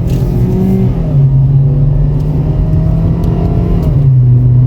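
Car engine accelerating, heard from inside the cabin: a steady low drone whose pitch drops back about a second in and again near the end, like an automatic gearbox shifting up, with a fainter note rising in between.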